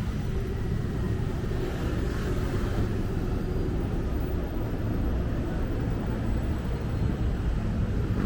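Busy city road traffic: a steady, low rumble of engines and tyres from vehicles passing close by, with no single event standing out.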